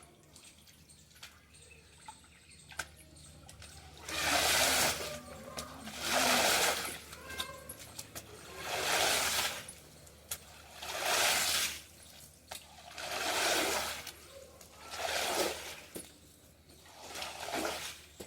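Rainwater splashing in repeated, even strokes, about one every two seconds, starting about four seconds in: seven swishes in all.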